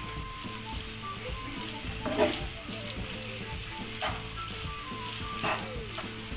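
Macaroni and egg sizzling in a nonstick frying pan while a spatula stirs and scrapes them, with a few sharper scrapes about two, four and five and a half seconds in.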